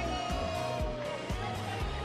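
Music with a steady drum beat, about two beats a second, and a melody line that slides down in pitch in the first second.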